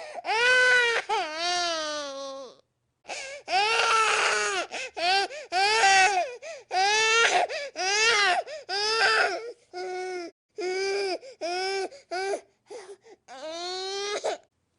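Baby crying in a string of wails, each rising and falling in pitch and broken by short catches of breath, with a longer breath a few seconds in.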